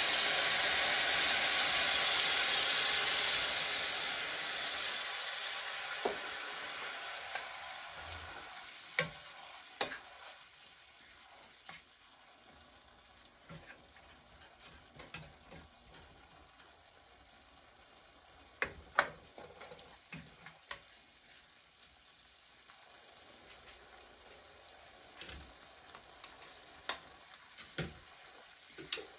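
Water poured into a hot, oiled stainless steel pan of sautéed vegetables sizzles and hisses loudly in a burst of steam, dying down over the first several seconds to a low simmer. Occasional taps and scrapes of a plastic spatula against the pan follow as the vegetables are stirred.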